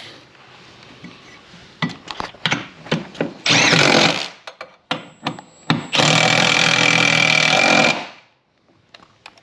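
Handheld power driver ('gun') running bolts into a jet ski's intake grate: a short burst about three and a half seconds in, then a steady run of about two seconds, with small clicks and knocks of the tool meeting the bolts in between.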